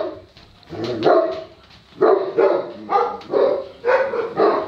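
Dog barking: a couple of barks about a second in, then a quick run of barks about three a second.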